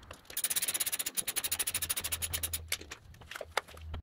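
Ratchet wrench clicking rapidly, about a dozen clicks a second for roughly two seconds, as the nut on a riding mower's rear wheel hub is turned to fasten the wheel back on. A few slower single clicks follow near the end.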